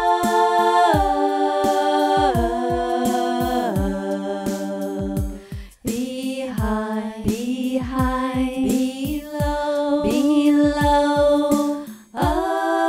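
Song with sustained chords over a steady beat; a sung melody comes in about six seconds in, with short breaks near the middle and just before the end.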